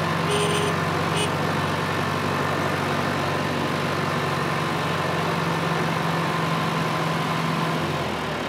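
Tractor engine idling with a steady low hum, which drops away near the end.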